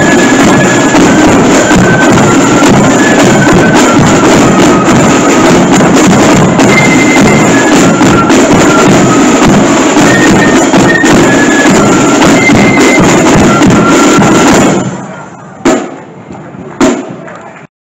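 Marching flute band playing a tune: flutes carry a melody of held high notes over loud drumming. The music stops suddenly about fifteen seconds in, followed by two sharp knocks.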